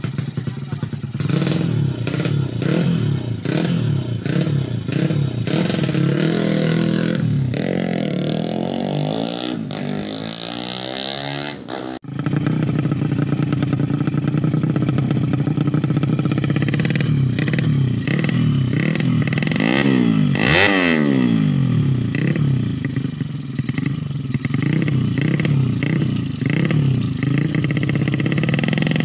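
Bored-out Honda Supra X single-cylinder four-stroke engine (100 cc enlarged to 130 cc) on a drag bike, revved in repeated quick blips. It climbs to high revs and falls back around ten seconds in, breaks off briefly near twelve seconds, and makes its sharpest high-rev peak about twenty seconds in.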